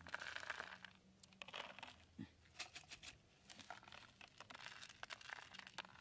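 Faint, irregular ticking and pattering of grain kernels dropping from a small plastic bottle onto a sheet of cardboard, with some rustling and scratching of fingers on the cardboard near the start.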